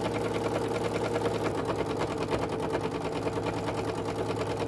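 Domestic sewing machine running at a steady speed for free-motion stitching. Its needle strokes make a rapid, even clatter over a steady motor hum.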